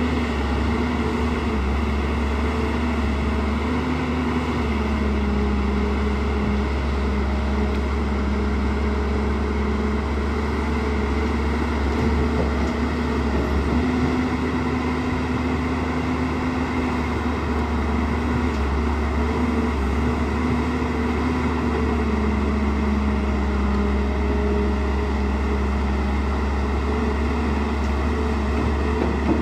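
JCB NXT 205 crawler excavator's diesel engine running steadily while it digs, with a low hum and an engine note that shifts slightly up and down every few seconds.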